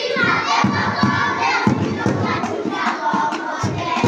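A group of children shouting and calling out together, many voices at once, as they perform a dance.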